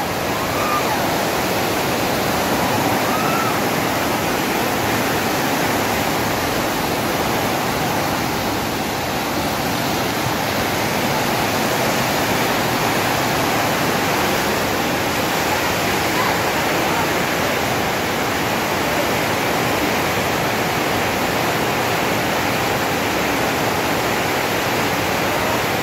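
Muddy floodwater rushing fast down a channel, a steady, unbroken wash of moving-water noise that never lets up.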